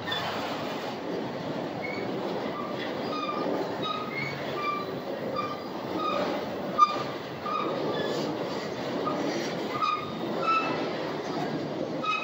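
Freight train of autorack cars rolling past: a steady rumble of steel wheels on rail, with many short high-pitched squeals from the wheels and one sharp clack about seven seconds in.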